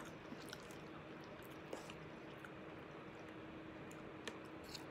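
Faint chewing of soft fried rice, with a few light clicks of a metal spoon and fork against the plate.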